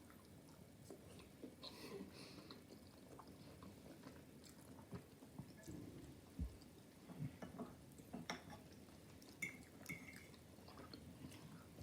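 Quiet eating: soft chewing with scattered light clicks of cutlery on a plate, and one dull thump about six and a half seconds in.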